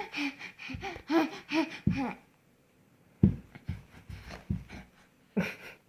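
A five-month-old baby making short, breathy monkey-like sounds: a quick run of them in the first two seconds, then after a short pause a few more scattered ones.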